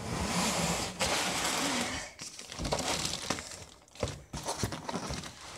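Crinkling and rustling of plastic and cardboard packaging being pulled about inside a box, with scattered sharp knocks. The rustling is steady for about the first two seconds, then breaks into shorter bursts.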